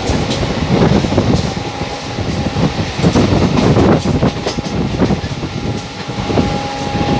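Passenger train running along the line, heard from on board: a loud continuous rumble of wheels on rail with irregular clatter and rattling. A thin steady whine joins about five and a half seconds in.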